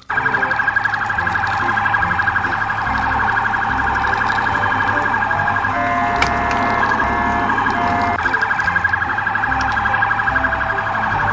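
Police car siren sounding continuously in a fast, rapidly warbling pattern at a steady loudness. For about two seconds in the middle it switches to a different pattern of short steady tones, then goes back to the fast warble.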